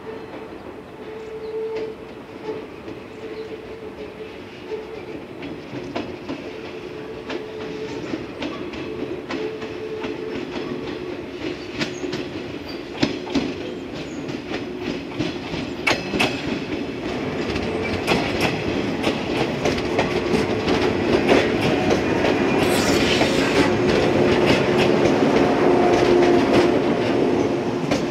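Yellow electric multiple-unit train of the Okayama depot's D25 set approaching and passing, its wheels clicking over the rail joints. It grows steadily louder and is loudest over the last few seconds. A brief hiss comes about 23 s in.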